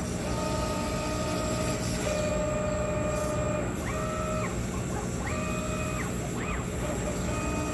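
Laser cutting machine's gantry motors whining as the head moves, the pitch ramping up, holding, then dropping again on each move, several times over, over a steady mechanical hum.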